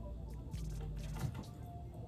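Soft background music, with the wet, squishy sounds of someone eating noodles close to the microphone.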